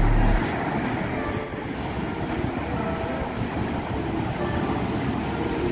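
Steady rushing noise of wind and surf at the shore, with no distinct events.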